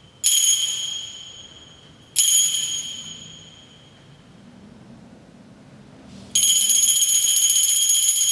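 Altar bells rung at the elevation of the chalice during the consecration: two single rings, each left to die away, then from about six seconds in a continuous shaken ringing.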